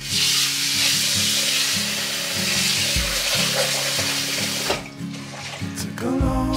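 Kitchen faucet running into a stainless steel sink, shut off about five seconds in.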